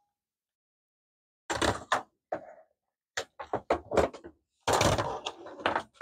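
Knocks, thunks and rustling from hair dryers being handled on a tabletop: a hair dryer is set down and a small hair dryer with its coiled cord is picked up. The knocks start about a second and a half in and come in quick succession.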